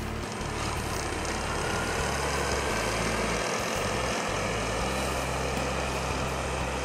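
Case TR320 tracked skid steer's diesel engine running steadily.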